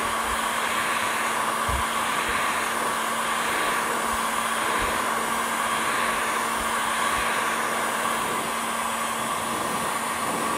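Corded Makita heat gun blowing hot air steadily, a rushing airflow over a constant motor hum. It is heating the aluminium crankcase's bearing pocket to about 250–300 °F so the crank bearing can be removed.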